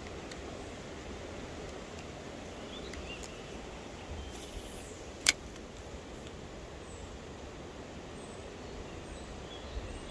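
Steady outdoor background noise with a few faint high chirps and one sharp click about halfway through.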